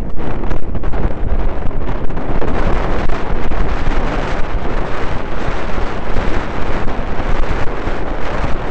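Wind buffeting the microphone over the rumble and crunch of mountain bike tyres rolling fast on a gravel track, with many small clicks and knocks from the bike.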